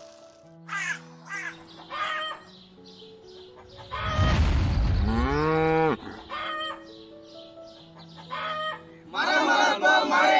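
Intro jingle: light music with farmyard sound effects. Chickens cluck in short calls, and a cow gives one long moo in the middle, rising and then falling in pitch. Near the end a group of men shout together.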